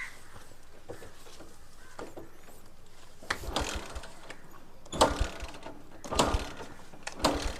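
About four short bursts of mechanical rattling and clanking, like a ratchet or gear mechanism being worked, starting a little over three seconds in.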